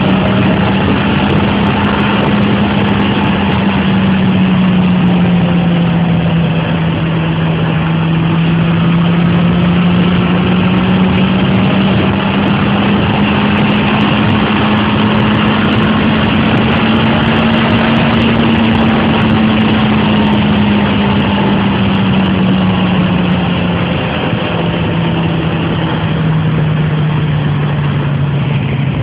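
Yamaha XJR1300's air-cooled inline-four engine pulling steadily at speed in fifth gear, under heavy wind and road rush. Its pitch rises and falls gently as the throttle varies, then drops lower near the end as the rider eases off.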